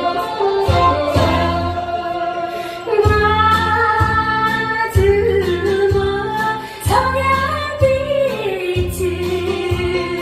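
A woman singing a Korean trot song to a backing band with a steady beat, holding long notes with vibrato.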